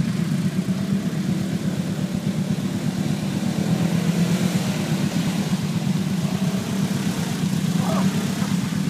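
ATV engine running steadily with little change in pitch as the quad creeps through mud and shallow water.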